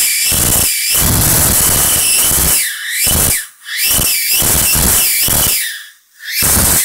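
High-voltage arc drawn from a Fujitsu CRT monitor's flyback transformer: a loud, constant tearing rip, like a zip but far louder, with a wavering whistle over it. It breaks off briefly about halfway through and again near the end.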